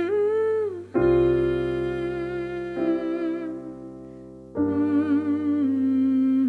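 Closing passage of an indie song: held keyboard chords with a wordless hummed melody wavering over them. The chords change about a second in, fade away, and come back in a new chord after about four and a half seconds.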